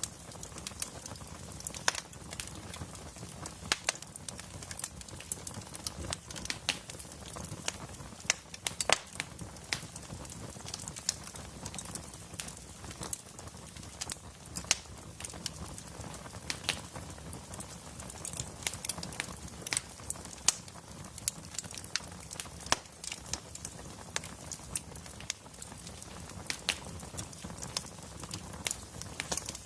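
Wood fire in a fireplace crackling: a steady low rush of burning logs with irregular sharp pops and snaps scattered throughout.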